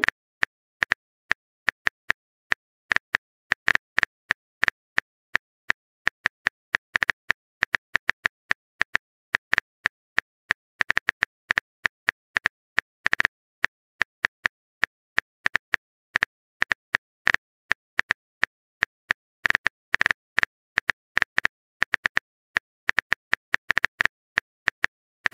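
Keyboard key-press clicks of a phone texting app: short, sharp taps, a few a second in uneven runs, as a message is typed out.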